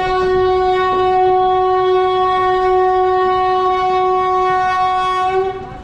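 Train horn sounding one long, loud, steady note over a low rumble, cutting off abruptly near the end.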